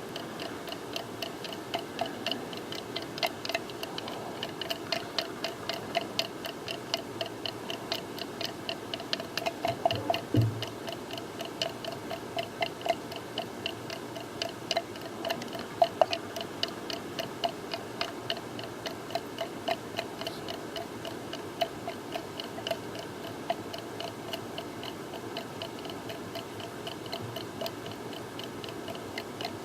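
Two-part epoxy being stirred by hand in a blender jar, the stirrer clicking against the container in a steady rhythm of about two clicks a second.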